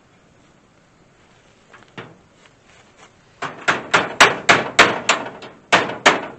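Hand pop-rivet gun being squeezed over and over, a quick run of sharp clicks, about three or four a second, starting about halfway through, as it pulls a pop rivet tight.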